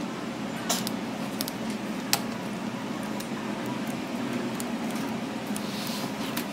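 Steady low hum with a few small sharp clicks and taps scattered through it, the sharpest about two seconds in.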